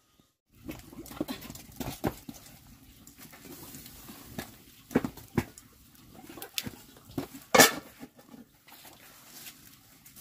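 Wood fire crackling and popping under a large cooking pot, with irregular sharp snaps over a low rustle, and one louder knock about seven and a half seconds in.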